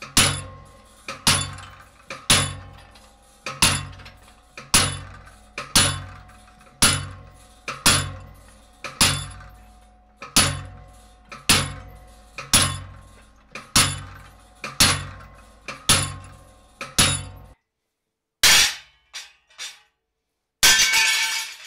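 Treadle hammer striking a cold chisel held on a steel plate, about one blow a second, each blow a clang with a short ring as the chisel cuts through the sheet. The blows stop about 17 seconds in, followed by one more sharp knock and a short metallic clatter near the end.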